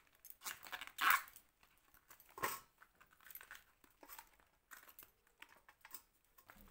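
Banana flower being peeled and picked apart by hand: bracts crinkling and tearing and florets pulled off, in irregular rustles with two louder tears about a second and two and a half seconds in.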